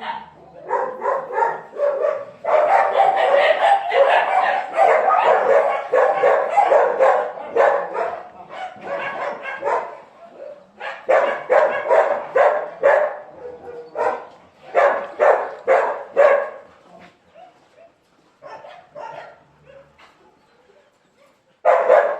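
Several dogs barking, at first in a dense overlapping chorus, then in spaced runs of barks, with a quieter lull before the barking starts up loudly again near the end.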